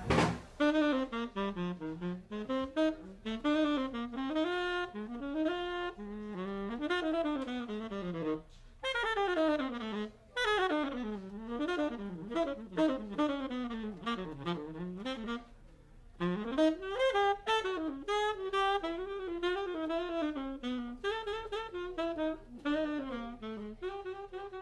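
Background jazz music: a lone saxophone playing a fast, winding solo line, with a short pause about two-thirds of the way through.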